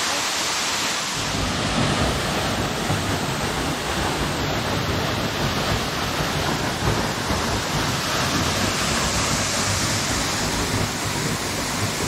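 Waterfall: a steady rush of water falling onto rock and into a pool, with a low rumble joining in about a second in.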